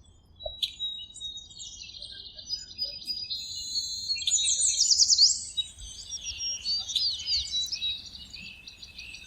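Several birds chirping and singing together, a busy mix of high trills and quick down-slurred notes, loudest about halfway through.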